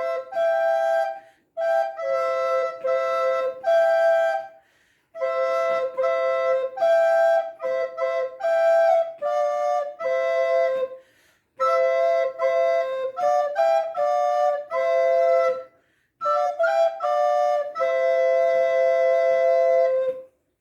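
Soprano and alto recorders playing a simple tune together in two-part harmony, in short phrases with brief pauses for breath, ending on one long held note.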